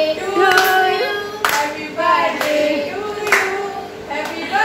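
People singing, with hand claps roughly once a second.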